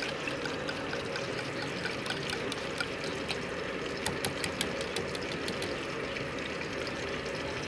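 Steady hiss of okra frying in oil. About four seconds in there is a short run of light clicks, a wire whisk tapping against the bowl.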